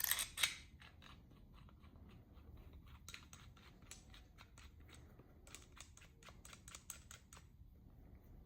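Connecting rod and rod bolts being handled and threaded by hand, making faint clicks and taps: a quick cluster of louder clicks at the start, then a run of light, rapid clicks in the middle.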